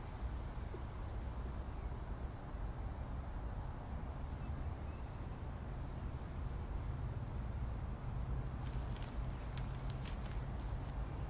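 Steady low rumble of outdoor background noise, with a cluster of short clicks or rustles near the end.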